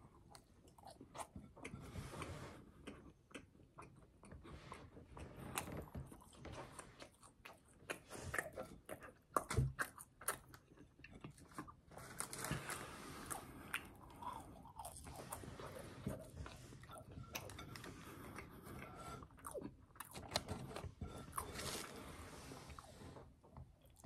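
Close-up biting, crunching and chewing of crispy fried fast food, with irregular crackles and wet mouth sounds. A dull thump about ten seconds in.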